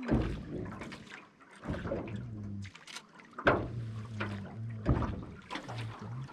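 Oars of a hand-rowed boat dipping and pulling through the water, a splash and knock roughly every second and a half, four strokes in all.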